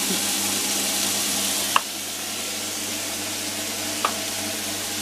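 Chicken pieces frying with onion and spices in a pan with very little oil, a steady sizzling hiss that eases slightly after a couple of seconds. Two short sharp clicks cut through it, one about two seconds in and one near the end.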